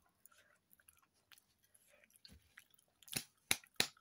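Faint chewing and small mouth clicks from eating boiled saba banana, then, about three seconds in, a few loud sharp crackles as a paper napkin wrapped round a banana is handled right at the microphone.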